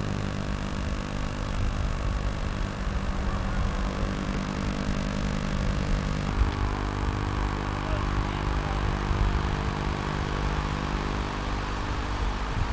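Diesel engine of a wheeled padfoot soil compactor running steadily, its note changing to another steady pitch about six seconds in.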